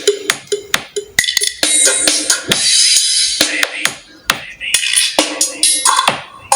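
Music with a drum beat and sharp percussion hits, played on a Lenovo K3 phone's loudspeaker for a sound check.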